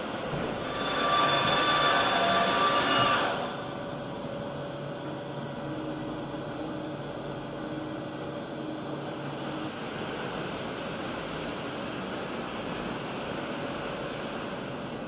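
WFL Millturn CNC mill-turn machine running: a loud whine made of several steady high tones rises just under a second in and stops abruptly after about three seconds, followed by a steady lower mechanical hum.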